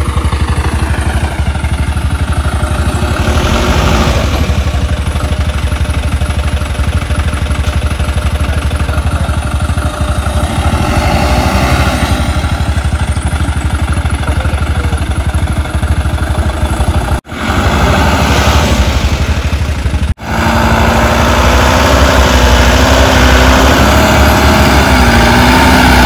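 Motorcycle engine running on a dirt road, with a heavy low rumble. After two brief cuts, about 17 and 20 seconds in, an approaching Tata Sumo taxi's engine hums steadily.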